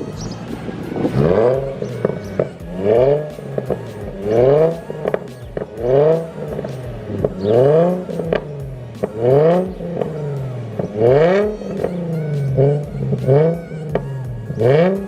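Nissan Z NISMO fitted with a titanium Tomei dual-exit exhaust, revved in short throttle blips about one every second and a half. Each rev climbs and falls in pitch.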